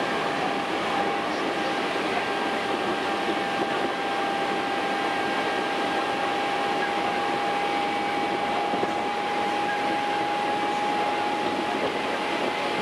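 Hankyu Kyo-train electric train running at steady speed, heard from inside the train: a constant rumble and hiss of running noise with a thin, steady high whine over it that fades near the end.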